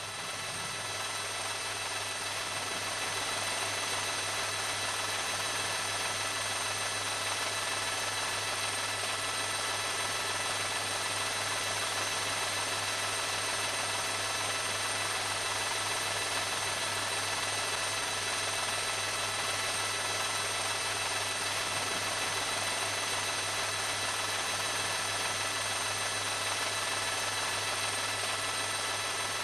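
Steady machine drone, unchanging throughout, with a constant hum and several fixed high whine tones over an even rushing noise.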